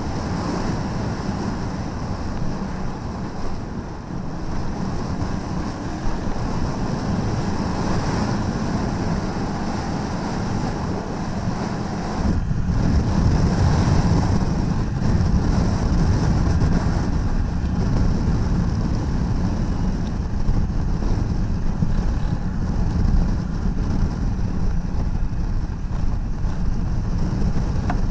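Wind rushing over the microphone of a Honda Africa Twin 1000cc parallel-twin motorcycle riding along, with the engine and tyres running underneath. The low rumble grows louder about twelve seconds in.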